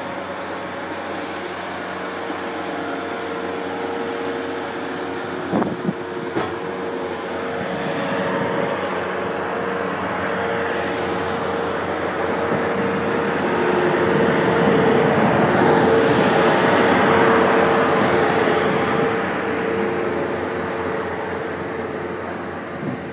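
Engine of a small loader clearing snow, a steady drone that grows louder as the machine comes close, loudest about two-thirds of the way in, then easing off. Two sharp knocks come at about six seconds.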